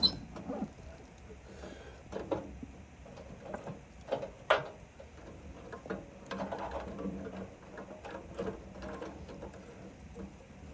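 Scattered small clicks and knocks of hands working wires onto the terminals of a furnace control board, with a sharp click at the start and another about four and a half seconds in.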